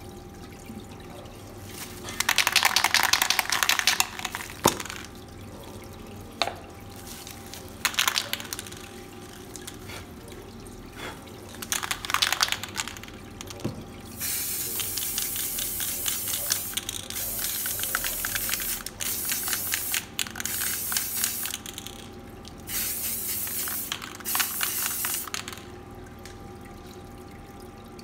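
An aerosol spray can of fluorescent paint spraying in bursts: a few short ones, then a run of longer passes from about halfway through, each a hiss that starts and stops sharply. Under it, the steady splash of the water curtain running down the back of a spray booth.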